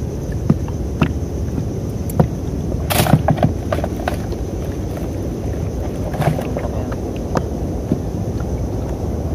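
Steady low wash of water and wind around a small wooden fishing boat, with scattered light knocks of tackle against the hull. A brief louder splash-like burst comes about three seconds in, as a small fish is swung out of the water.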